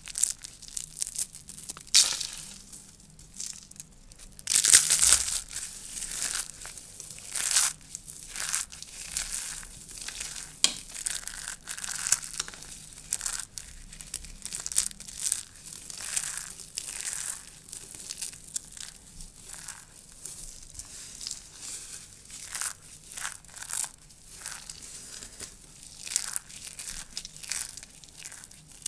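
Dry soap curls being crushed and broken apart: dense, irregular crisp crackling and crunching, with louder crunches about two and five seconds in.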